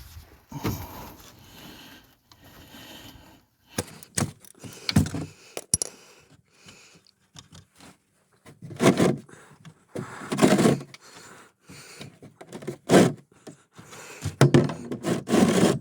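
Tool and metal handling as the oil drain plug is broken loose with a 13 mm socket and unscrewed: scattered sharp clicks at first, then several louder scraping, clunking bursts in the second half.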